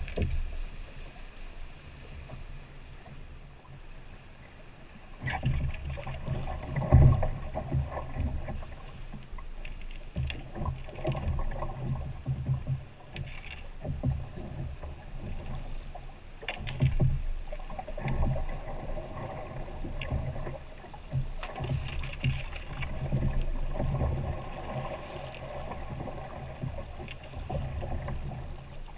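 Canoe being poled down a fast, flooded creek: rushing water against the hull and a low rumble, with irregular knocks and bumps, the loudest about seven seconds in.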